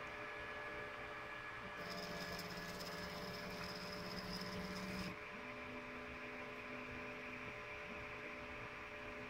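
Rat Rig 3D printer's stepper motors whining faintly as the machine runs its Z-tilt bed-levelling routine, moving between probe points and adjusting its three Z motors. One steady tone lasts about three seconds, then come two shorter moves at a slightly higher pitch.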